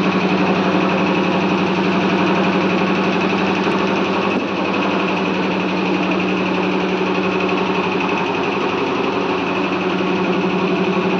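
A motor running steadily at one even speed, a loud drone with a fast, even pulse.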